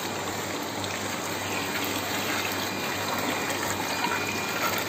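Water pouring steadily into a tank.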